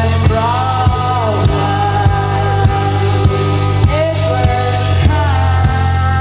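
Live band music with a steady kick-drum beat about every 0.6 seconds over a deep sustained bass. A melodic line slides up and down above it.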